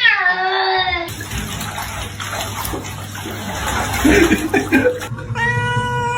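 A cat meowing in protest at being bathed: a drawn-out meow that falls in pitch, then a few seconds of splashing bath water with short cries, and a long, steady yowl near the end.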